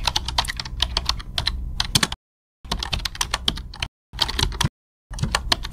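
Computer keyboard typing: rapid, irregular keystroke clicks in several bursts, each cut off abruptly by a brief dead-silent gap.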